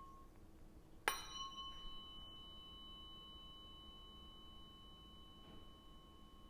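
A tuning fork is struck sharply about a second in, then rings on steadily with a clear high tone and a higher overtone, used for Biofield Tuning sound healing. A fainter earlier ring dies away just at the start.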